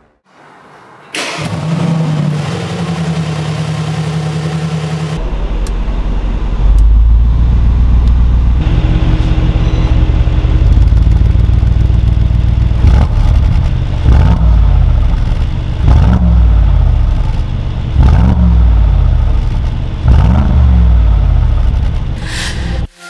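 Brabus 800 Mercedes-AMG G 63's 4.0-litre twin-turbo V8 starting up about a second in, idling with a deep rumble, then blipped about five times roughly two seconds apart, each rev rising and falling quickly, before it shuts off near the end.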